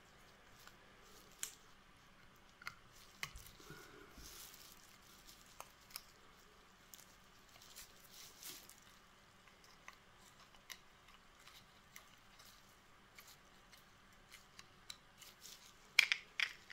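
Faint handling noise as nitrile-gloved hands fit a dirt scraper into a ball screw nut: scattered small clicks and rustles, with a quick run of louder clicks near the end.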